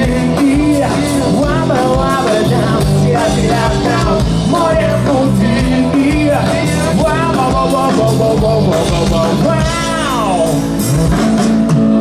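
Live rock band playing over a concert sound system: drums, electric guitars and keyboards, with a melodic line that bends in pitch and a long falling slide near the end.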